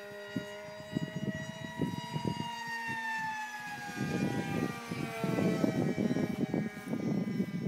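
Fun Jet radio-controlled model plane's motor and propeller whining in flight, the pitch falling over the first few seconds as it passes. Gusts of wind buffet the microphone, strongest in the second half.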